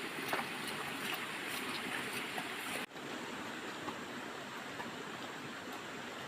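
Steady rushing outdoor noise, like water or wind, with faint scattered ticks; it cuts out for an instant about three seconds in.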